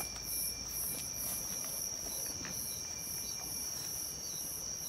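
Night insects calling: one holds a steady high trill while another gives a higher chirp pulsing about twice a second.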